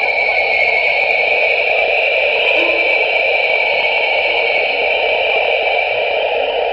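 Sonification of James Webb Space Telescope data: a steady, even wash of noise in two bands, one lower and one higher, with a few faint short notes underneath.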